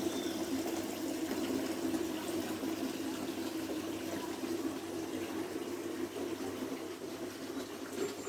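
Water running steadily in a small tabletop room fountain, trickling and splashing down a little root waterfall. It eases slightly in the last few seconds.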